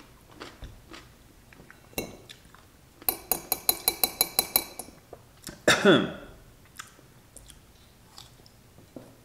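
A metal fork clinks against a glass pickle jar in a rapid run of about a dozen ringing taps over a second and a half while spearing a pickle, followed about six seconds in by a loud scrape that falls in pitch. Soft chewing follows.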